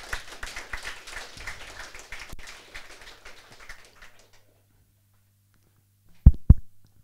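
Audience applauding at the end of a talk, dying away after about four seconds. Near the end come two loud, low thumps a fraction of a second apart.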